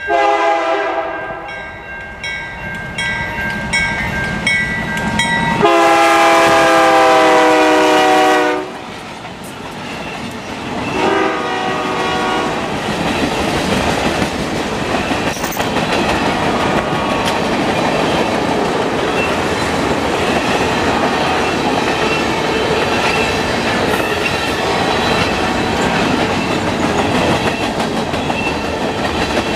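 Freight train led by GE diesel-electric locomotives passing: the lead locomotive's multi-note air horn sounds two long blasts, the second louder, then a shorter one. After that the wheels and cars rumble and clatter by steadily.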